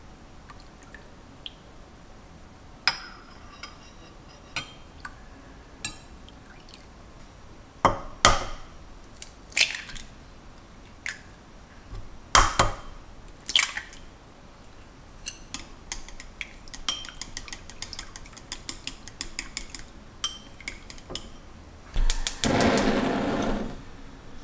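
Kitchen prep sounds: a metal spoon and utensils clinking against glass and ceramic bowls, with several sharp knocks as eggs are cracked, then a run of quick light clinks. About 22 s in, a gas stove burner lights with a brief rushing noise.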